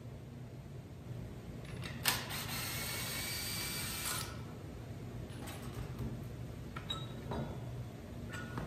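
An impact wrench runs in one burst of about two seconds, starting with a sharp click, as it spins a wheel's lug nut off. After it come several light metallic clicks and taps.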